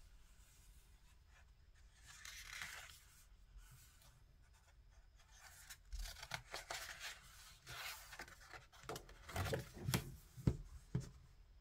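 Paper pages of a small book being turned, rustling and sliding against each other, then the book being closed and handled, with a few soft knocks near the end.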